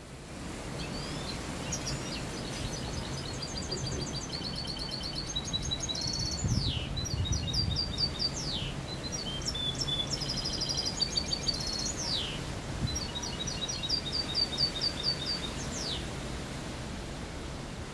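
A caged mixto, a finch × canary hybrid, singing in phrases of rapid repeated trills and quick falling sweeps with short pauses between them, over steady low background noise.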